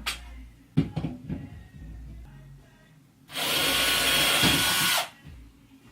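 Power drill running for almost two seconds, boring a pilot hole in the wall for a shelf screw, after a few light knocks of handling.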